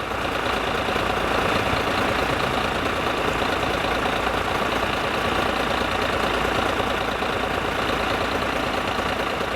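A fire engine's engine idling steadily.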